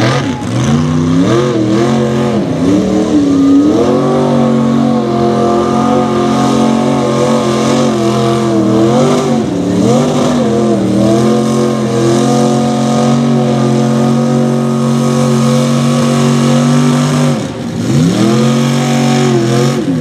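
Chevy mega truck's engine revving hard while driving through a mud pit. It rises and falls in the first few seconds, then holds at high revs for a long stretch. It drops off briefly near the end and revs up again.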